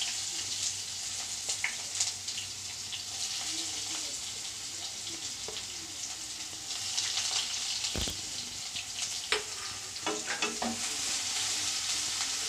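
Chopped onion sizzling in hot oil in a kadai, with a spatula clicking and scraping against the pan as it is stirred. A dull knock about eight seconds in.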